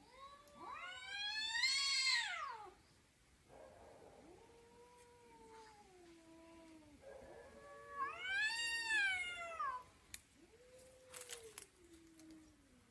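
Cats caterwauling back and forth: two loud, long yowls that rise and fall in pitch, each answered by a lower, quieter, drawn-out moan that sinks in pitch.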